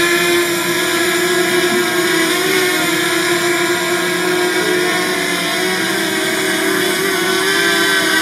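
DJI Mavic Mini drone's propellers whining steadily in flight, an even pitch that wavers slightly.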